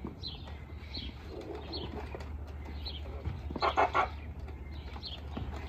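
Birds chirping in the background: a run of short, high, falling chirps, about two a second, with one louder burst a little past the middle.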